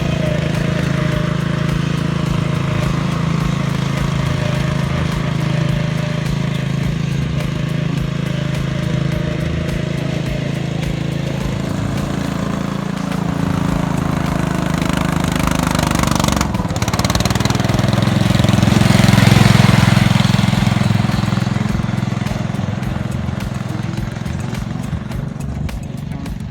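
Small engine of a racing lawn mower running at speed. The sound breaks off briefly about two-thirds through, swells to its loudest soon after, then fades away.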